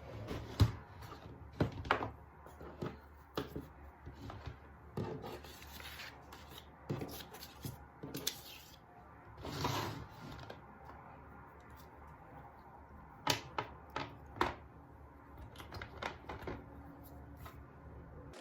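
Irregular taps, clicks and knocks of small objects being handled, with a brief scraping or rustling sound about ten seconds in.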